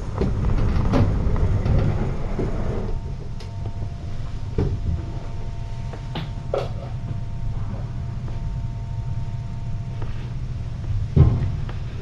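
Steady low rumble of room noise on a live-stream cam microphone, with scattered light knocks and a louder thump about eleven seconds in.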